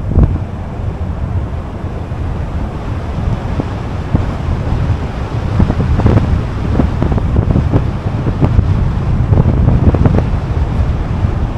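Heavy wind buffeting the microphone while riding along: a loud, steady low rumble with irregular gusts.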